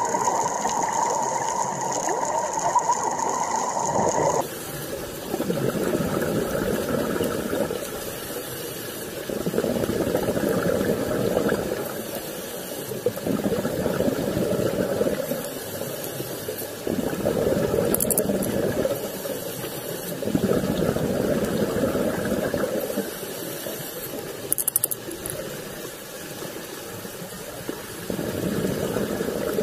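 Scuba diver breathing underwater through a regulator: swells of exhaled bubbles every three to four seconds, with a thin hiss between them on the inhale. For the first four seconds a different mechanical rattling sound with a steady tone is heard instead, and it cuts off abruptly.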